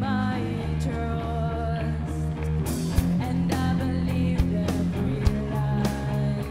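Live rock band playing: electric guitar and bass holding notes under a young woman singing, with a few sharp drum hits.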